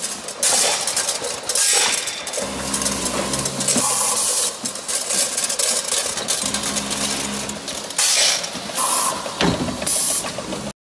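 Automated chewing-gum dosing and packaging line running: repeated short bursts of compressed-air hiss from its pneumatic cylinders, a motor humming steadily in two stretches of a couple of seconds each, and scattered clicks and rattles of the machinery.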